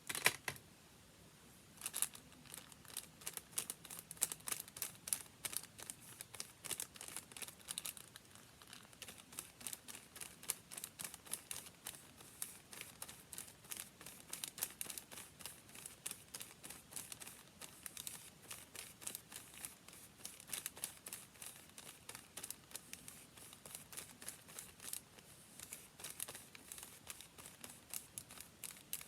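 Paper being handled and crinkled: a dense, uneven run of small crisp crackles, with a sharp loud crackle at the very start and another about two seconds in.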